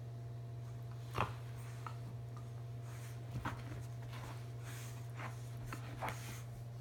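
Australian cattle dog puppy wriggling on a fleece blanket while playing with a tennis ball: scattered rustles and short soft knocks, the sharpest about a second in, over a steady low hum.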